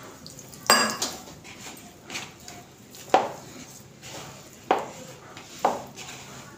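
An orange plastic mixing bowl clattering while sabudana dough is hand-kneaded in it. There are four sharp knocks, about a second or more apart, each with a short ring.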